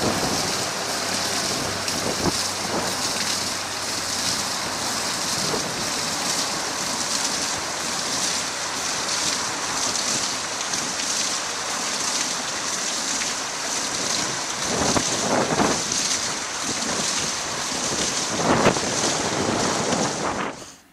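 Steady rushing hiss of water spraying and splashing from a running concrete hydraulic ram pump, with a few brief louder surges in the last few seconds.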